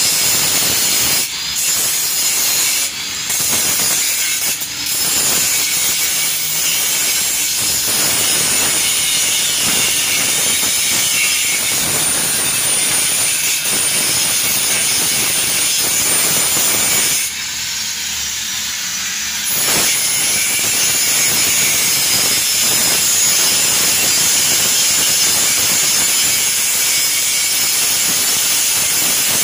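Handheld angle grinder grinding the steel tube frame of a motorcycle cart, a steady loud grinding noise with a thin high whine. It eases off briefly a few times early on and drops away for about two seconds past the middle.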